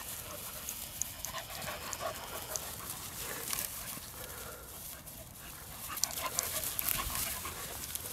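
Dogs panting as they chase and tussle, with scattered scuffs and rustles of paws and bodies moving through dry grass.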